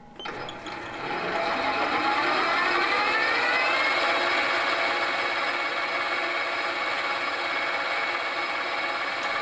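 Metal lathe spinning up, its motor whine rising in pitch over the first few seconds and then holding steady, while a 1/8-inch stub drill in the tailstock drills into the end of a spinning push rod.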